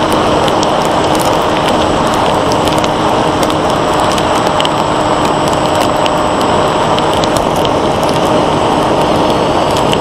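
Onboard sound of a Bixler 1.1 FPV model plane in flight: a steady rush of wind over the airframe, with the Turnigy 2826-6 electric motor and 8x3.4 propeller humming at a constant pitch underneath. Scattered faint ticks sound through it.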